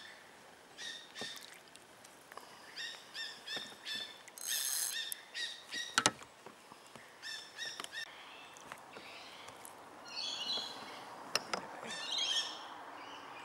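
Birds chirping in short, repeated high calls, with a sharp click about six seconds in.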